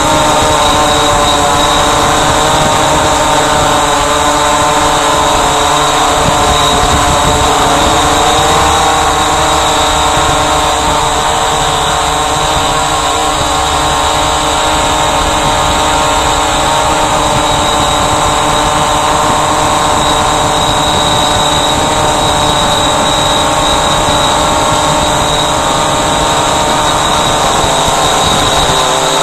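Walkera Voyager 3 quadcopter's electric motors and propellers whining steadily as it flies, heard from its own onboard camera, with wind rumble on the microphone. The pitch of the whine shifts slightly about nine seconds in.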